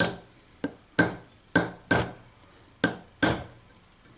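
Hammer striking a nail punch to peen a knife's pin into a rivet head against a steel railway-track anvil: seven sharp metallic taps in an uneven rhythm, each with a short high ring.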